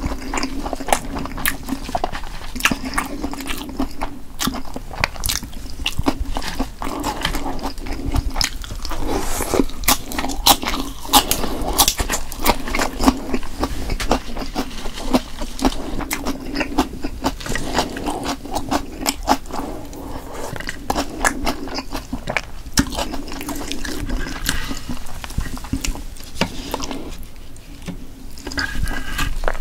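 Close-miked chewing and wet mouth sounds of someone eating Korean blood sausage (sundae), a dense run of small irregular clicks and smacks.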